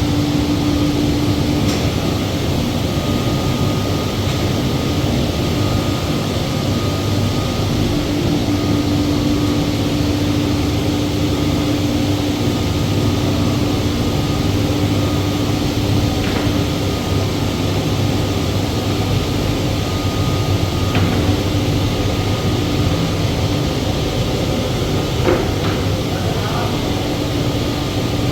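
Steady machine hum with a constant low tone, unbroken throughout, with a few faint ticks.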